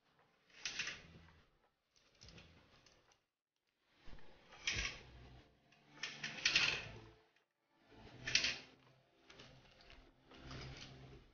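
Plastic Connect Four coins being dropped one after another into the upright grid, each clattering down its column onto the coins below; about seven short clatters a second or two apart.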